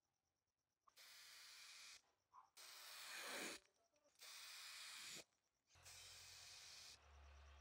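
Aerosol primer spray can hissing in four separate bursts of about a second each, with short quiet gaps between.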